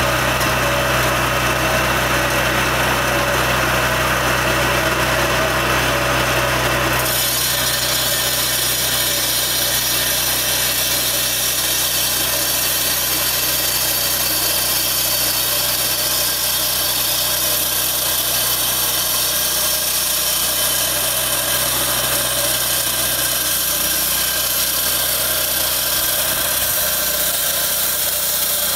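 Engine-driven walk-behind floor saw running steadily while cutting asphalt with a water-cooled blade. The sound changes abruptly about seven seconds in, becoming brighter and higher-pitched.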